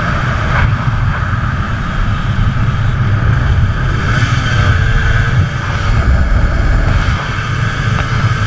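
Heavy, steady wind rumble on the microphone of a camera riding on an Aprilia RS250 at road speed, with the bike's two-stroke V-twin engine running under it.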